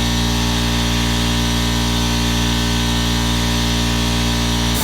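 Air compressor running with a steady loud hum and hiss, shutting off right at the end and winding down over about half a second.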